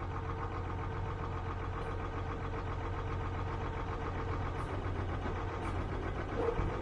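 Diesel engine of a DAF tilt-and-slide recovery truck running steadily, with a constant low drone, while its winch draws a motorhome up onto the bed.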